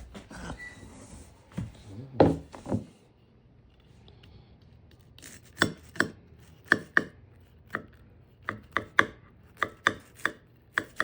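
A knife chopping on a cutting board: a few heavy knocks about two seconds in, then a run of about a dozen sharp, separate chops over the second half, spaced unevenly.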